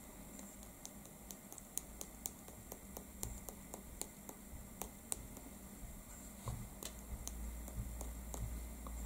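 Faint, irregular light ticks and taps, several a second, as a fan brush loaded with Brusho powdered ink is dabbed over a gel printing plate.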